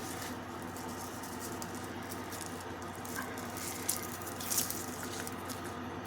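Faint rustling from handling adhesive Velcro strips, with two short crackles about four seconds in, over a steady low hum.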